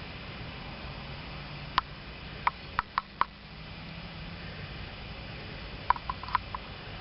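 A handful of sharp ticks and taps in two small clusters, five about two to three seconds in and four near six seconds, over a steady low hum.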